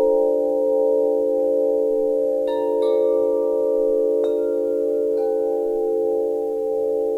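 Wind chimes ringing, several tones held and overlapping, with fresh strikes about two and a half seconds in, just before three seconds, at about four seconds and again near five.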